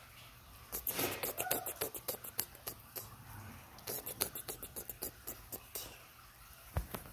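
Scratchy rustling and irregular quick clicks, several a second, from a hand rubbing and wrestling a Rottweiler puppy lying on its back on a rug, its fur and paws brushing against the hand and rug. The clicks start about a second in.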